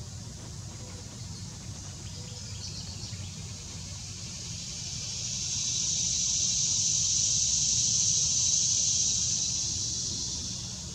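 An insect's high, even buzzing call that swells in about four seconds in, holds loudest through the middle and fades away near the end, over a steady low rumble.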